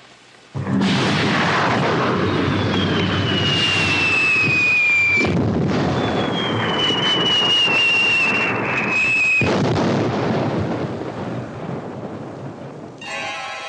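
Rockets and powder explosions going off: a sudden blast about half a second in, then loud rumbling crackle with two long falling whistles, dying away after about ten seconds. Music comes in near the end.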